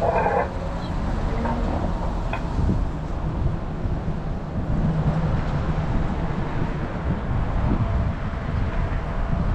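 Car idling or creeping forward, a steady low engine and road rumble with wind noise on the microphone. A brief higher-pitched sound right at the start.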